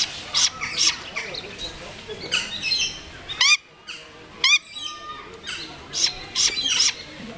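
Great grey owl chick screaming: a run of short, harsh, hissing screeches repeated about every half second. Two brief pitched whistled notes come about halfway through.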